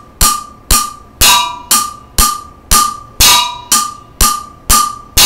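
Wooden drumsticks striking the edge of a metal cooking pot in a steady beat of about two strokes a second, each stroke ringing briefly with a metallic tone. Every fourth stroke rings with a slightly different tone.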